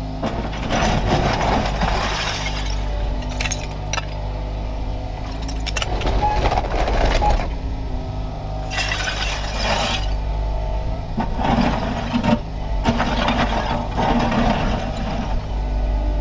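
Kubota KX61-3 mini excavator's diesel engine running steadily under work, with five bursts of harsh scraping and clinking from the bucket working soil and stones.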